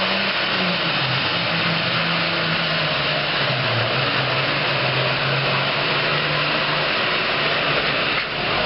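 Super Farm class pulling tractor's turbocharged diesel engine running hard. Its pitch sinks slowly over about six seconds, then the engine note drops out about seven seconds in.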